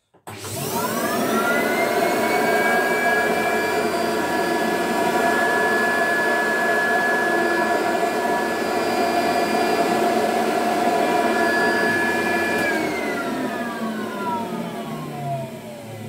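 Mid-1970s McDonald Electric 250 upright vacuum cleaner switched on. Its motor has a slow start, the whine climbing in pitch over a second or so, then runs steadily, sounding very healthy. About thirteen seconds in it is switched off and winds down with a long falling whine.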